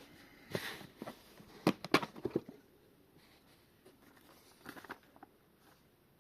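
Hands handling a revolver's box and packaging: a short rustle, then a quick run of sharp clicks and knocks around two seconds in, and another brief rustle later.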